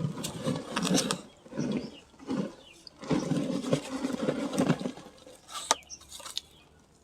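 Sand-cement chunks crumbling and crunching, a series of irregular gritty crunches with a longer crumble in the middle and a sharp crack near the end.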